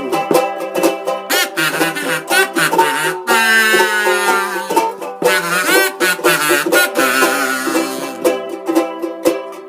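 Instrumental break of a vaudeville song: a ukulele is strummed in a steady rhythm while a kazoo carries the wavering melody.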